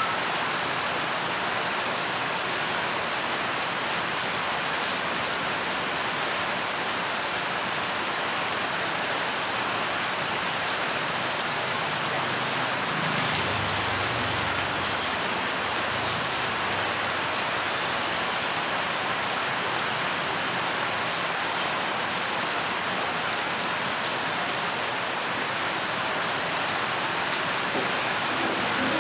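Heavy rain falling steadily onto floodwater covering a road, a dense, even hiss of drops splashing on the water's surface. A faint low rumble passes about halfway through.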